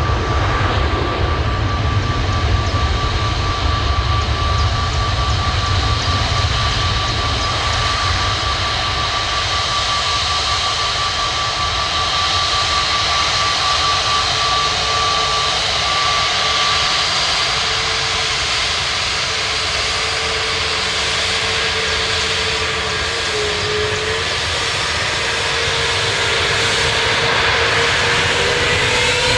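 Airbus A321neo's twin turbofan engines at takeoff power: a loud, steady, deep rumble with steady whining tones over it. Near the end the tones glide upward.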